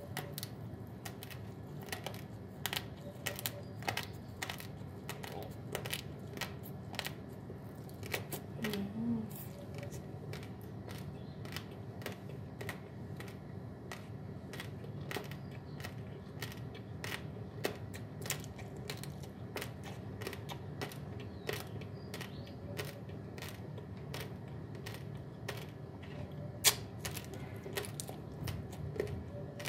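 Raw basmati rice grains crunching as they are chewed: irregular sharp cracks, a few per second, with one louder crack near the end, over a steady low hum.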